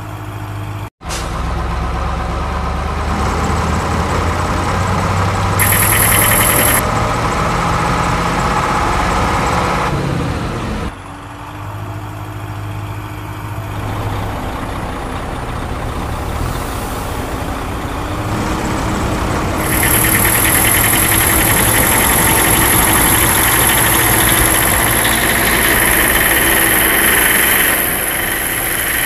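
Heavy truck engine sound effect running steadily, made of spliced segments: it cuts out abruptly about a second in and changes sharply near eleven and again near twenty seconds, with a hiss over it in places.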